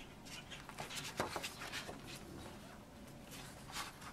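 Pen scratching on stiff photo paper in short, quiet strokes as a circle is traced, with a couple of light ticks.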